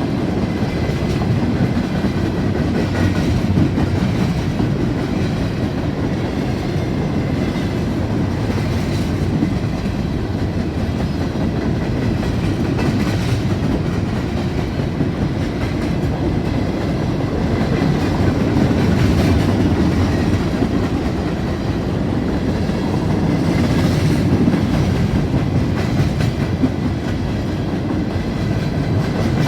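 Norfolk Southern freight train rolling steadily past, a continuous loud rumble of cars and wheels on the rails with repeated clicks of wheels over rail joints.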